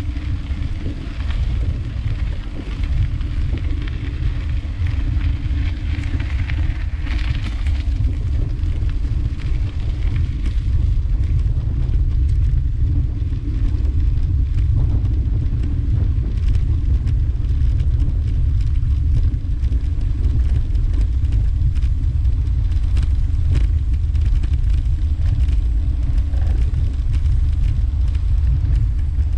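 Bicycle rolling over cobblestone paving: a steady low rumble from the tyres on the stones, with small knocks and rattles from the bumps.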